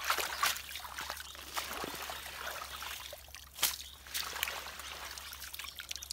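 Water splashing and trickling as a woven bamboo basket is pushed through shallow, muddy water and lifted out, with water running back through the weave. There are several sharper splashes, the loudest about three and a half seconds in.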